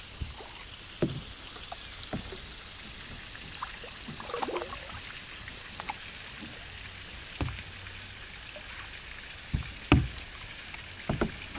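Kayak being paddled: paddle blades dipping in the water, with a few sharp knocks of the paddle against the kayak, the loudest near the end, over a faint steady wash of water.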